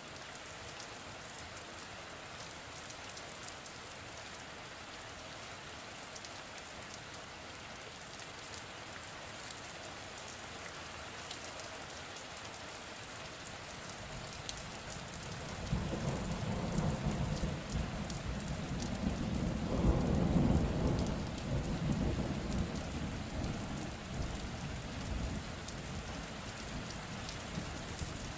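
Steady rain falling, with a long rumble of thunder rising about halfway through, peaking a few seconds later and slowly dying away under the rain.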